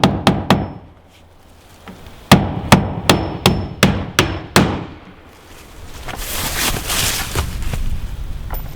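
Hammer driving galvanized nails into a Miratec trim board: a couple of blows at the start, a pause, then a run of about seven blows at roughly three a second. Near the end a rushing hiss takes over.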